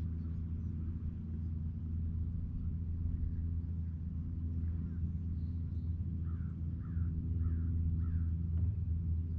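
A steady low rumble, with a crow cawing four times in quick succession past the middle.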